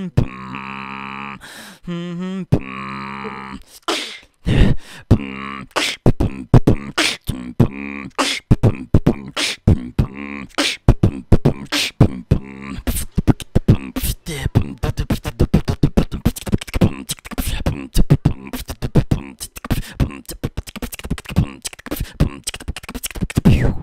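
Vocal beatboxing. It opens with a few seconds of held, wavering hummed bass tones, then breaks into a fast run of percussive beats and clicks that gets denser, and stops abruptly at the end.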